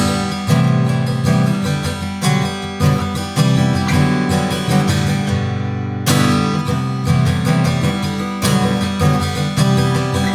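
1962 Gibson J-45 round-shoulder dreadnought acoustic guitar being played: chords and picked notes with frequent strummed attacks, ringing on between them.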